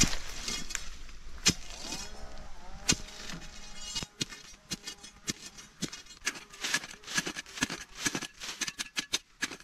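Narrow spade blade digging into soil around a Chinese yam tuber: irregular chops and scrapes, coming faster in the second half.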